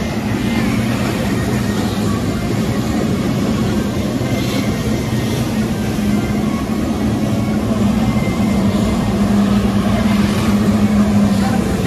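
Jet ski engines running at high, steady revs to drive the flyboards' water jets, a constant drone over a steady hiss of spraying water.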